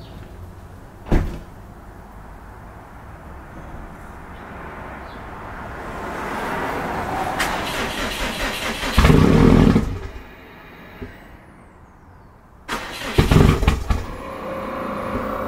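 Cold start of a Subaru WRX STI's turbocharged flat-four, fuelled with E85: a sharp click about a second in and a slowly rising noise, then two loud bursts as the engine is started, about nine seconds in and again near the end, after which it runs steadily.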